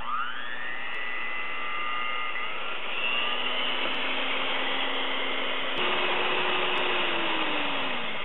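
Proctor Silex electric hand mixer running, its beaters whipping a thin flour, egg and milk batter in a stainless steel bowl until smooth and bubbly. The motor whine rises in pitch as it starts, steps up a little before six seconds in, then falls away as it slows near the end.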